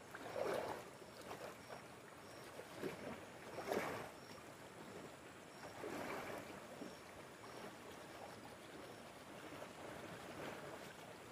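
A swollen river rushing steadily over rocks, with several short splashes and sloshes as a person wades waist-deep through the current.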